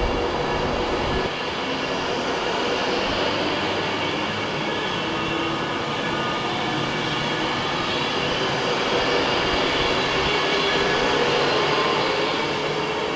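Class 390 Pendolino electric train running past the platform: a steady, loud rush of wheels on rail, with faint high steady tones over it.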